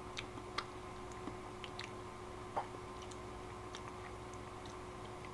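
Faint scattered mouth clicks and small lip smacks from tasting a mouthful of ice cream, over a steady low room hum.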